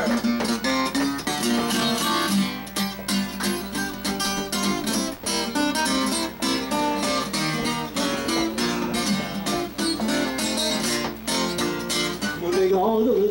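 Acoustic guitar playing an instrumental break of a country-blues rag: quick picked notes with sharp, regular attacks over a moving bass line.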